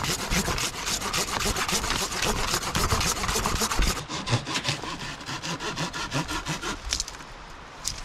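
Hand pruning saw cutting through a small green tree trunk in quick, even back-and-forth strokes. The strokes lighten about four seconds in and stop about a second before the end, leaving a few scattered scrapes.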